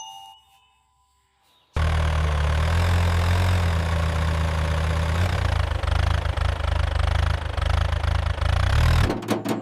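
Vehicle engine running, a sound effect with a deep, steady rumble. It starts suddenly about two seconds in and cuts off shortly before the end.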